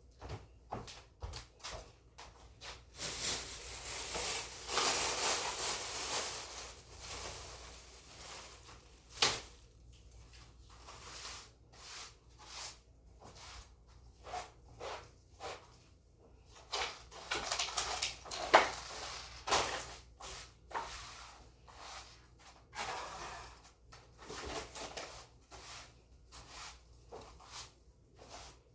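Floor being cleaned by hand: irregular swishing strokes with scattered knocks and clicks, and no motor running.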